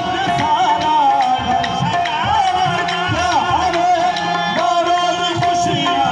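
Live folk devotional music played on harmonium and hand drums: a held, wavering melody line over a steady drum beat.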